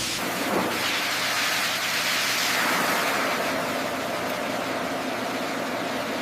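A steady, loud hiss of a spray, as of a jet of liquid or air being sprayed onto a surface.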